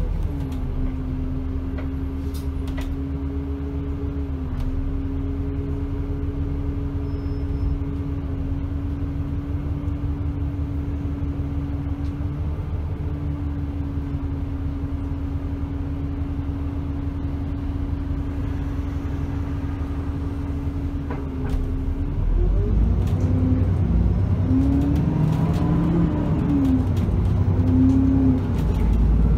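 Alexander Dennis Enviro 400 double-decker bus engine, heard from inside the lower deck, idling with a steady hum. About 22 seconds in it pulls away and gets louder, its pitch rising and falling as it accelerates through the gears.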